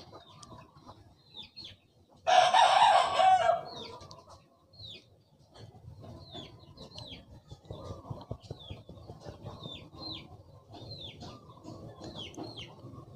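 A rooster crows once, loudly, for about a second and a half a couple of seconds in. Small birds chirp in short falling notes throughout, over a soft rustle of a cloth towel rubbing a vape pod.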